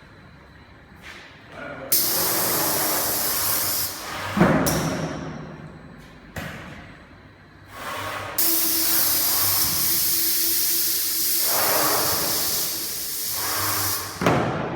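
A servo-driven 3-axis CNC machine running, with two spells of loud, steady hissing that switch on and off sharply: a short one about two seconds in, and a long one from about eight seconds to near the end. There is a single thump about four and a half seconds in.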